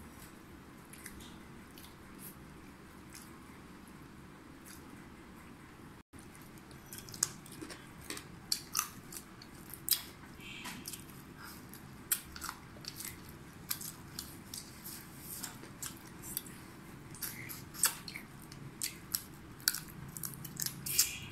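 Close-up eating sounds from two people eating rice and chicken curry with their hands: chewing, biting and wet lip smacks. Faint and sparse for the first six seconds, then sharp smacks and crunches come several times a second.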